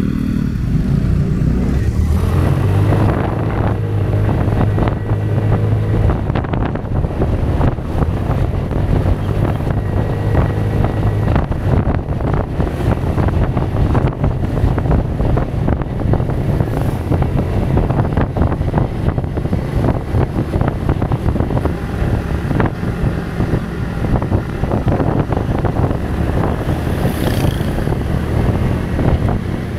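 Kymco Xtown 300i maxi scooter's single-cylinder engine running steadily under load on a steep uphill ride, with wind rushing and buffeting over the microphone.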